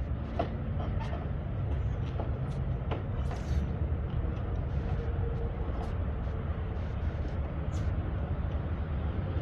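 Steady low rumble like a vehicle running, with a few scattered light clicks and taps.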